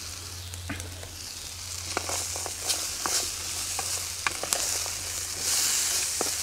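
Sliced sausage and vegetables sizzling in a frying pan, stirred with a wooden spatula that scrapes and taps against the pan now and then. The sizzle gets louder in the second half.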